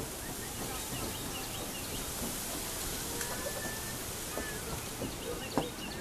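Outdoor ambience: a steady hiss of background noise with small birds chirping faintly now and then, and a single sharp click about five and a half seconds in.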